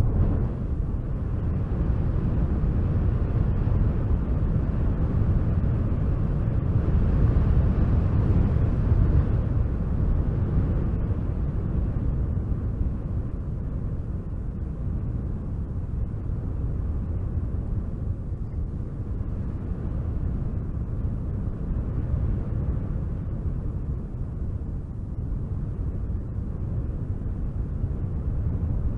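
Wind blowing in a steady low rush, swelling into a stronger gust about seven to ten seconds in, then easing back.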